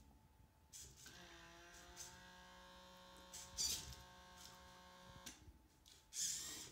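The servo motors of a uArm Metal robot arm whine steadily and faintly as the arm moves, from about a second in until near the end. Two brief rustles come in the middle and near the end.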